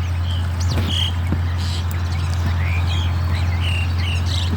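Many short, high chirping bird calls, several a second, over a steady low hum.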